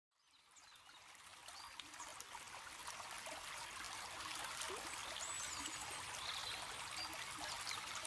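Faint trickling water fading in from silence, with a few faint, distant bird chirps.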